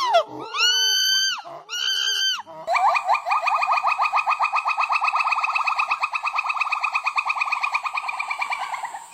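Monkey calls: two high, whistle-like calls that rise and fall, then from about two and a half seconds in a long, even trill of about ten pulses a second.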